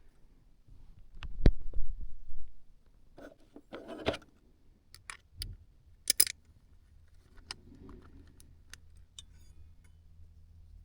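Small metal parts of a windmill ornament clicking, clinking and knocking as they are handled and fitted together by hand, with a few dull knocks about a second in.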